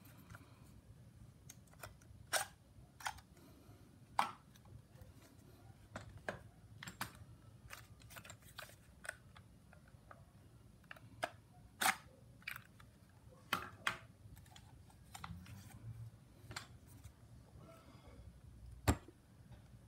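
Scattered sharp clicks and knocks of hard plastic as a cordless drill and its battery packs are handled, about fifteen in all, irregularly spaced, with one louder knock near the end.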